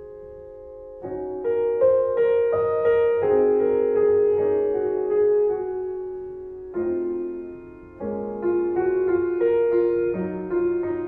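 Background piano music: a slow piece of single notes and chords, each struck and left to fade, starting after a brief pause about a second in.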